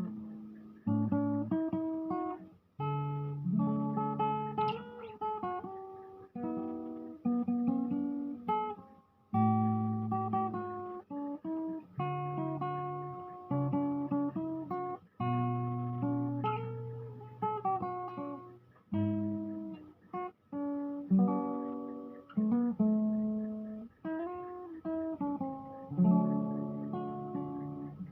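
Solo acoustic guitar played fingerstyle: plucked bass notes under a picked melody, in phrases with short breaks between them.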